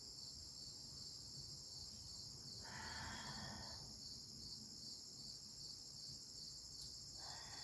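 Steady, high chorus of crickets chirring, faint but continuous. A short soft hiss comes about three seconds in.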